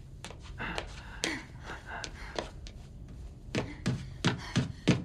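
Footsteps climbing stairs: a run of about five quick thuds, roughly three a second, in the last second and a half, after faint scuffs and clicks.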